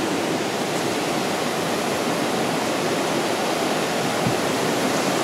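A mountain river running: a steady, even rush of water.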